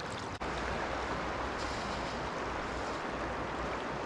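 Steady rushing of a fast-flowing river's current, with a low rumble underneath. It drops out briefly about half a second in.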